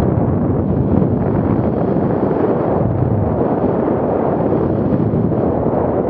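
Steady loud rush of wind buffeting the microphone, mixed with mountain bike tyres rolling fast over a dirt trail.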